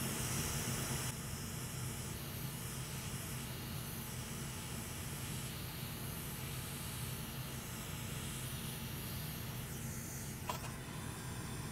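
Hot air rework station blowing a steady hiss of hot air onto a metal shield plate on an iPad logic board, melting the solder along its edges. A small click comes near the end.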